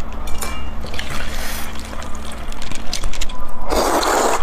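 A loud wet slurp of noodles being sucked into the mouth near the end, after fainter scattered clicks and rustles.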